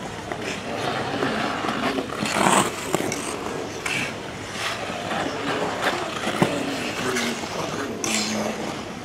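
Ice skate blades scraping and gliding on a rink's ice, several skaters at once, with repeated short hissing scrapes, the loudest about two and a half seconds in.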